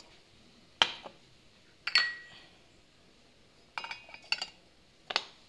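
Glass bowls and a stainless-steel mixer-grinder jar clinking against each other as coconut and spices are tipped in: single sharp clinks about a second apart, with a quick run of three or four about four seconds in.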